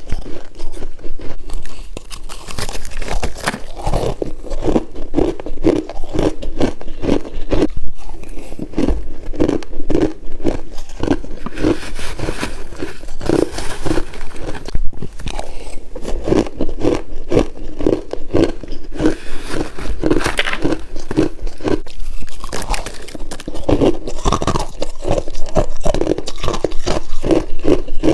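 Freezer frost being bitten and chewed close to the microphone: a continuous crisp crunching crackle, with a steady chewing rhythm of two to three strokes a second.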